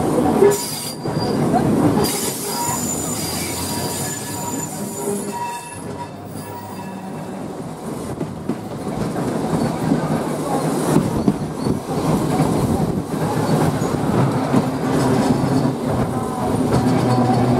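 Original 1904 electric tramcar running along the track: a steady rumble and rattle, with the wheels squealing on the rails in short, thin, high-pitched whines that come and go.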